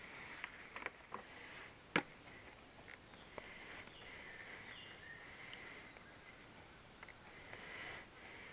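Faint insect chorus with a few light clicks and taps scattered through it, the sharpest about two seconds in.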